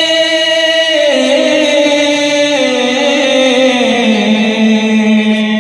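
Male voice singing an Urdu naat, drawing out one long note that steps and slides down in pitch.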